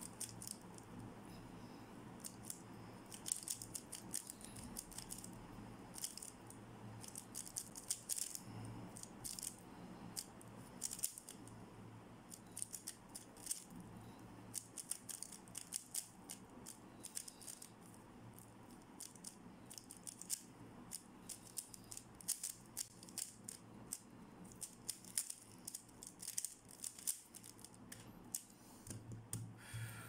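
MoYu RS3M 2020 magnetic speedcube being turned quickly by hand: a fast, irregular stream of small plastic clicks and clacks as the layers snap through their turns.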